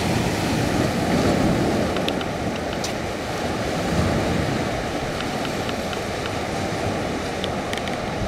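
Ocean surf breaking on a rocky shore and washing up the beach, a continuous rush that swells about a second in and again about four seconds in.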